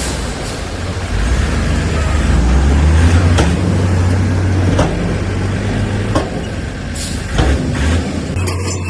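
Heavy diesel earthmoving machinery running with a steady low engine rumble, with sharp metallic clanks that come several times, roughly every second and a half.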